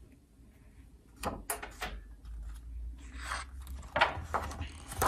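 Pages of a hardcover picture book being turned by hand: a few soft knocks, then paper swishes as the pages go over.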